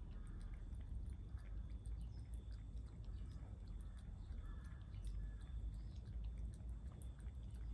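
Sphynx cat lapping water from a bowl: a run of soft, wet little ticks and slurps from its tongue.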